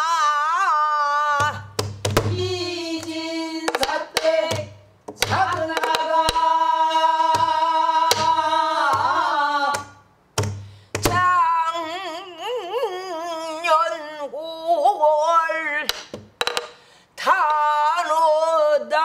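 A woman singing pansori in long held notes with a wide, wavering vibrato, keeping time on a buk barrel drum. Low drum thuds and sharp stick clicks fall under the voice through the first half, and only a few clicks come later.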